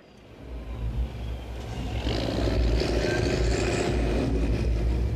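Åkerman excavator's diesel engine running, its rumble rising over the first two or three seconds and then holding steady.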